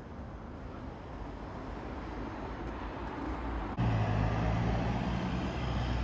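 Road traffic noise, a steady hiss of passing vehicles that slowly grows louder. About four seconds in it jumps louder, with a steady low engine hum from cars on the road.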